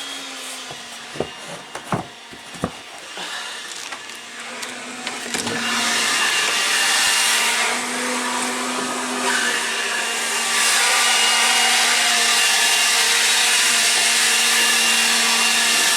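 A battery-powered leaf blower's electric motor whirring with a steady whine. It builds up about five seconds in and steps louder about ten seconds in, after a few light knocks near the start.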